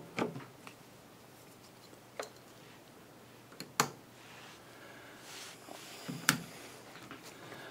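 A few separate sharp clicks and light knocks against quiet room tone: handling a valve tester, its selector switches and the valve being set up for a test.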